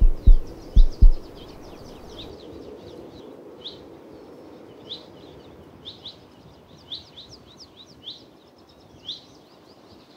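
Deep heartbeat thumps in lub-dub pairs for about the first second, then they stop. A small bird then keeps up short, high chirps about once a second over a low, even outdoor background.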